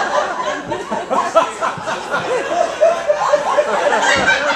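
An audience laughing: many people chuckling at once.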